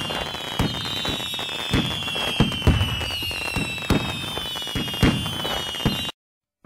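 Fireworks going off: a rapid, irregular string of bangs and crackles over a high whistling tone that slowly falls in pitch, cutting off suddenly about six seconds in.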